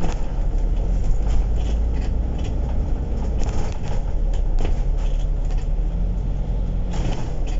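Inside a moving KMB bus: steady low engine and road rumble with scattered rattles and knocks, a louder clatter near the end.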